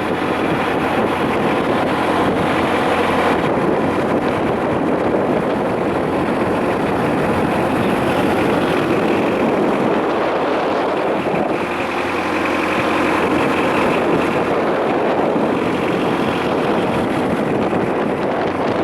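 A boat's engine running steadily under way, mixed with wind and water noise.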